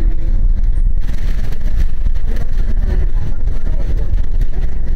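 Bus engine and road noise heard from inside the moving bus: a steady, loud low rumble.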